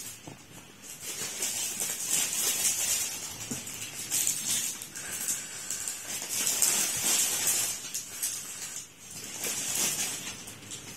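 A person slurping instant cup noodles off chopsticks, with several hissy sucking slurps a second or so long and a couple of seconds apart.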